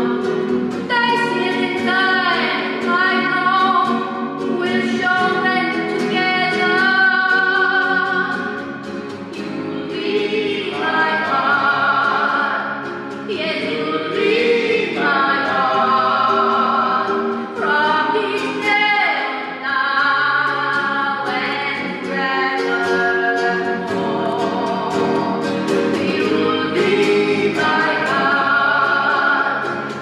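A recorded song playing: held, sung vocal notes over musical accompaniment.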